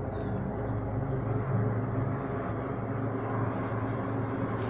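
Engines of a formation of aircraft flying overhead, heard as a steady low drone.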